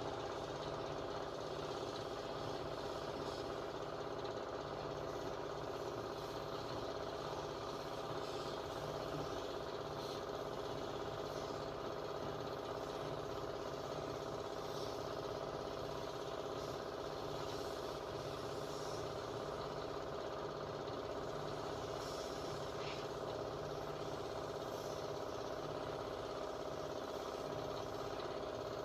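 A small motor running with a steady, even hum throughout.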